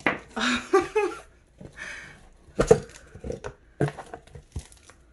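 Crinkle-cut paper shred filler rustling and crackling in a cardboard box as a hand digs through it. It comes as a series of separate crackles and rustles, with a few short pitched sounds in the first second.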